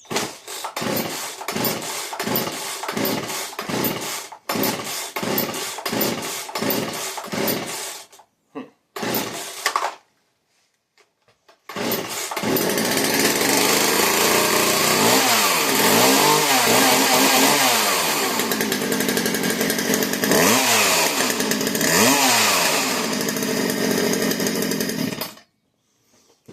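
Craftsman two-stroke gas chainsaw being pull-started on choke. First comes a run of regular pulses, a little over one a second; it goes quiet near the ten-second mark. Then it runs steadily and is revved up and down several times before cutting off suddenly.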